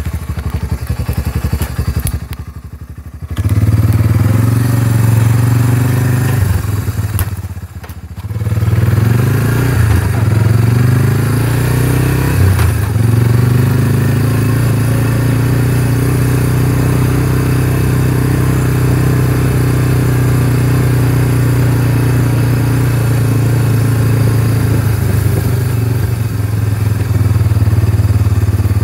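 An ATV's engine running as it is ridden along a bumpy grass trail. The engine note dips briefly twice in the first eight seconds, then runs steadily at a constant pace.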